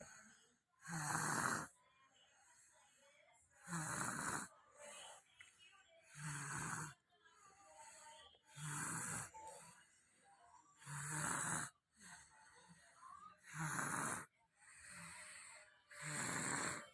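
Small child snoring in deep sleep: seven loud, even snores about every two and a half seconds, with fainter breaths between them.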